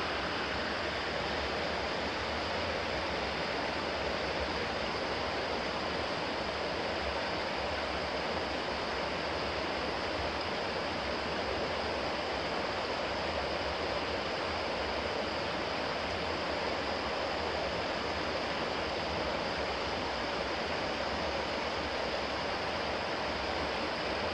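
Shallow river water rushing steadily over rocks.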